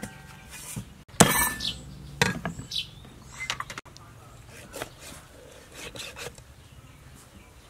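A whole raw chicken being handled and cut with a cleaver on a thick wooden chopping board: a string of knocks and clinks, loudest in the first half, then fainter cutting sounds.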